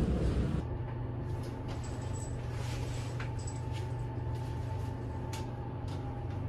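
Lift car running: a steady low hum with a thin steady tone above it and a few faint light clicks.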